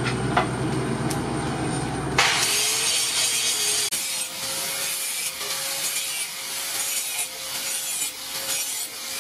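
An angle grinder with a flap disc grinding the edge of a steel hoe blade cut from a disc plough: a steady grinding hiss over a thin whine. For about the first two seconds, before the grinding starts, there is a low steady hum with a single metallic clink.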